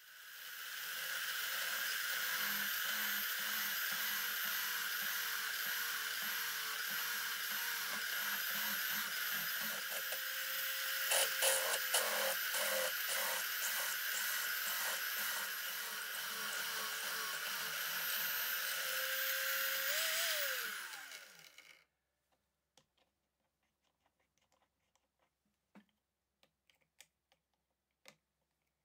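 Drill press motor running steadily while the bit drills into a small metal part held in a wooden vise, with a burst of sharp rattling chatter about halfway through as the bit cuts. Near the end the motor is switched off and its whine falls in pitch as it winds down, followed by a few faint clicks from the vise being handled.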